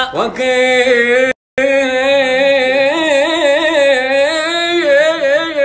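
A man sings a classical Arabic poem unaccompanied, holding long melismatic notes with wavering ornaments. The audio cuts out for a moment about a second and a half in.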